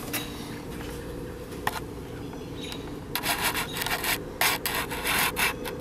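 Metal engine parts handled in an open crankcase while the camshaft gear is meshed with the crankshaft gear: a run of quick scraping clicks from about three seconds in, over a steady low hum.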